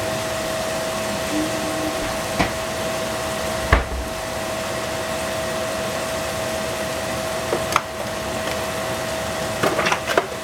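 Mushrooms simmering in their juices in a frying pan: a steady sizzling hiss over a steady hum. A few sharp clicks stand out, the loudest about four seconds in, with a quick cluster of clicks near the end.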